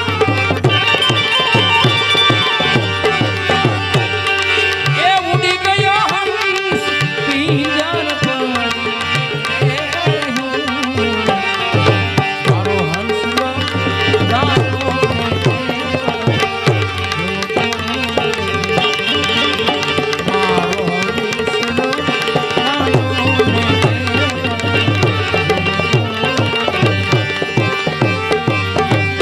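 Live Gujarati santvani devotional music: tabla playing a continuous rhythm under sustained, held melody tones, with a gliding melodic line.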